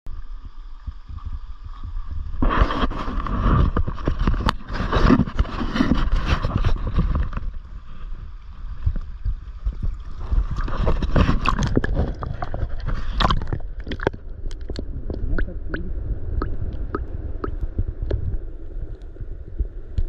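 Water sloshing and gurgling as a rainbow trout is handled in the river shallows, with wind buffeting the action-camera microphone. Near the end the swells give way to small splashes and drips.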